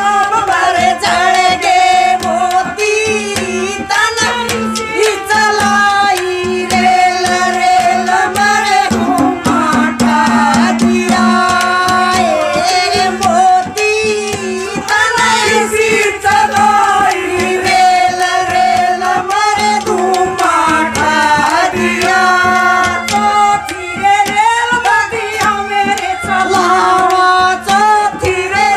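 Women singing a Haryanvi folk song into microphones, with hand-drum percussion and a steady low drone under the voice.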